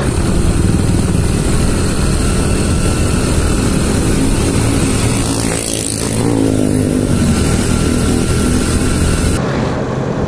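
Small motorcycles running through city traffic, with wind and road noise on the microphone. An engine note slides in pitch about six seconds in, and the hiss drops off suddenly near the end.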